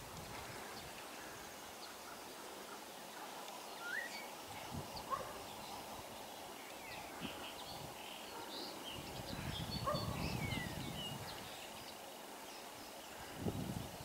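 Common (European) starling singing: a rambling string of short whistles, slurred notes and clicks, including a falling whistle about ten seconds in. A low rumble rises and fades a little past the middle.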